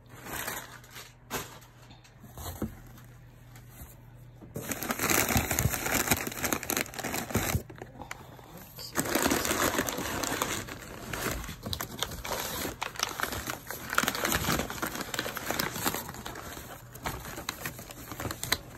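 Packing paper and wrapping crinkling and rustling as it is pulled out of a cardboard box. A few light clicks come first, then the rustling starts loud about four and a half seconds in and goes on in spells.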